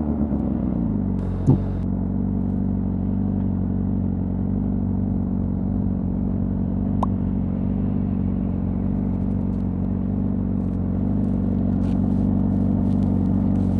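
Honda CBR600RR's inline-four engine through its stock exhaust: the revs drop during the first second, then it runs at a steady low idle.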